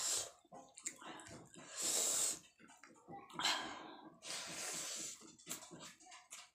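Close-up eating sounds: a person chewing a mouthful of rice and roasted chickpeas eaten by hand, with small mouth clicks and several hissing breaths.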